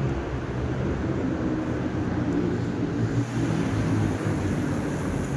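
Road traffic close by: motor vehicle engines running, a steady drone with low tones that drift up and down.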